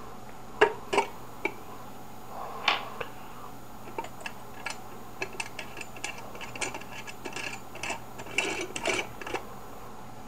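Gumball machine being handled and reassembled: a few sharp knocks of its parts early, then a rapid run of small clicks and clatters from about four seconds in.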